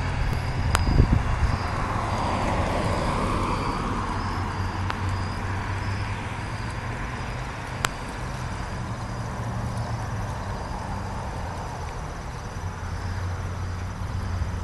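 A motorcycle engine fades away over the first few seconds, leaving a steady low engine rumble. Insects chirp in an even, pulsing trill throughout.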